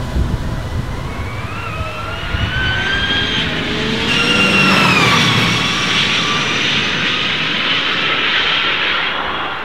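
Ford SuperVan 4's electric motors whining at speed. A high whine climbs in pitch as it accelerates, then drops sharply as the van passes about five seconds in, and it fades away near the end.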